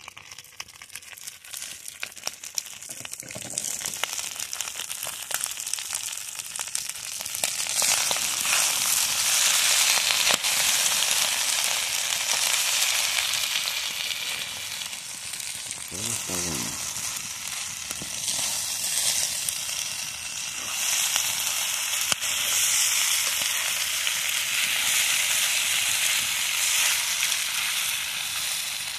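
Rice frying in a black skillet over a wood fire, sizzling steadily while it is stirred with a spoon, with sharp crackles scattered through. The sizzle builds over the first several seconds and then stays loud.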